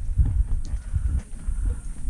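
Mountain bike rolling over a bumpy dirt singletrack, picked up by a camera on the bike or rider: irregular low thumps and rattles as the tyres and frame jolt over the ground.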